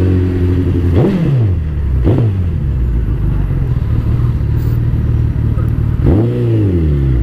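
Suzuki Hayabusa's inline-four engine running at low road speed, with two quick throttle blips about one and two seconds in and a longer rev that rises and falls back near the end.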